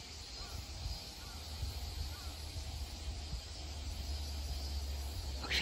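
Outdoor ambience with no train passing: a steady low rumble, a faint even high hiss and a few faint short chirps. A loud hissing buzz starts suddenly just before the end.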